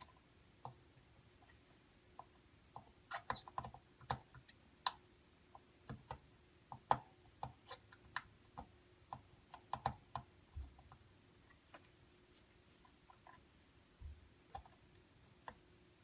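Irregular light clicks and taps from hand work desoldering a circuit board with a soldering iron and copper solder wick, thickest through the middle of the stretch.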